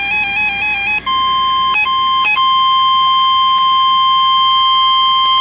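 A warbling electronic tone stepping between two pitches, then about a second in the NOAA Weather Radio 1050 Hz warning alarm tone starts. It is a steady single-pitched electronic tone, briefly broken twice, that signals a warning message is about to be read.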